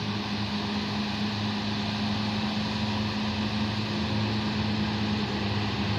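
Tour bus diesel engine running steadily under load as the bus crawls slowly up a steep climb: an even low drone.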